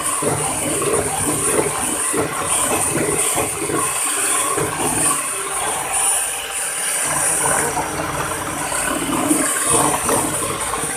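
Miyako electric hand mixer running steadily, its twin beaters whipping a frothy ice-cream mixture in a plastic bowl, with a thin high motor whine over the whisking.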